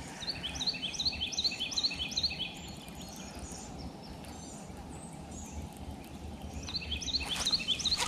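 A songbird singing a fast series of short rising chirps, one run about a second and a half long, then a shorter run near the end, over a low steady outdoor rumble.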